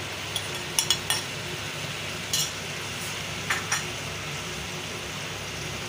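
Chicken pieces sizzling steadily in hot ghee in an aluminium pot, with a few short clinks and scrapes as a metal spoon pushes chopped chillies and herbs off a plate into the pot and a wooden spatula stirs.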